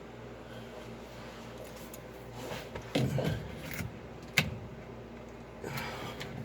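Rattling and scraping of washing-machine parts being worked loose by hand around the drain pump, with one sharp click about four seconds in, over a steady low hum.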